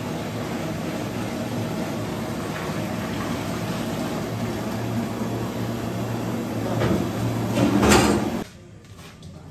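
Cooking sounds at a large pot over a gas burner: a steady rushing noise with a low hum, a louder scrape near the end, then the noise drops off abruptly.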